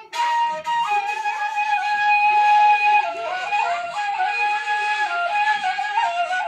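Kaval, a long end-blown cane flute, playing a slow folk melody with a breathy tone. It comes in just after the start and moves between long held notes with quick ornamental turns and slides.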